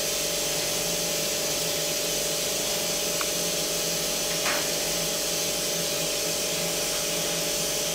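Steady room tone of running equipment: an even hiss with a constant mid-pitched hum. There is a faint click about three seconds in and a brief soft rustle about a second later.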